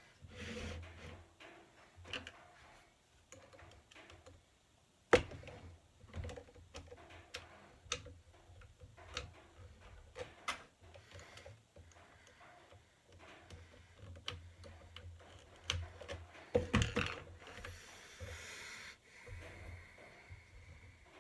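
Irregular clicks, taps and rattles of small parts and hardware being handled while assembling a 3D printer kit frame, with a sharp knock about five seconds in.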